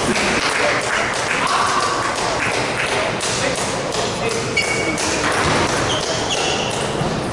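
Table tennis balls clicking and bouncing on tables and floor, many irregular taps at once in a large hall.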